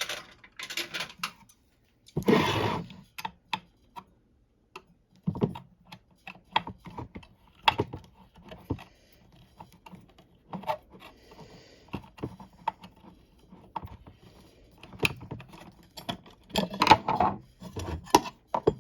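Irregular metallic clicks, taps and a brief scrape about two seconds in, with a denser run of clatter near the end: the external wall-mounting plate on the back of a Simplex 4027 single-stroke fire alarm bell being handled and taken off. The gong does not ring.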